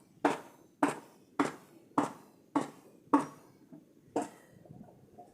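Food being chopped with a knife on a board in regular strokes, a bit under two a second, with a short pause before one last chop about four seconds in.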